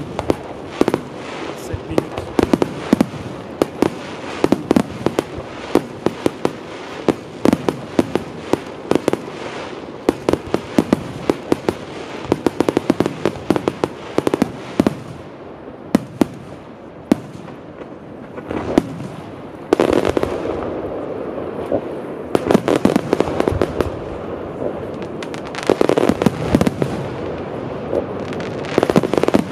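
Large aerial fireworks display going off: a rapid, dense run of shell bursts, many overlapping. The bursts thin out for a few seconds about halfway through, then come thick again.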